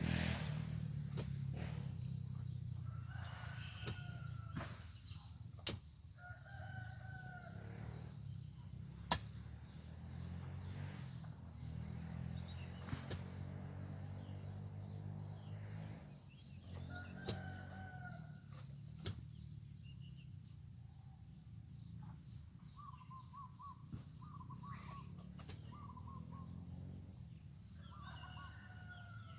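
Roosters crowing, about four times, each crow lasting about a second, with short clucking calls near the end. Scattered sharp knocks and a steady low drone run underneath.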